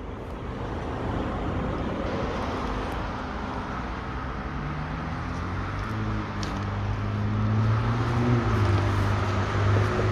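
Low hum of a motor vehicle engine over a steady rush of road traffic, growing louder near the end.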